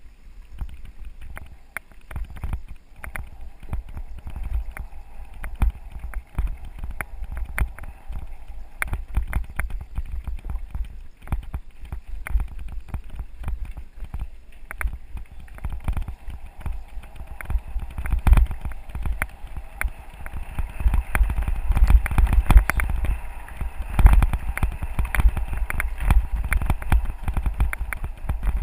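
Mountain bike riding over a rough gravel and rock dirt road: the tyres crunch and the bike and camera rattle with many sharp knocks, over a low rumble of wind on the microphone. The jolting grows louder and busier in the second half as the track gets rockier.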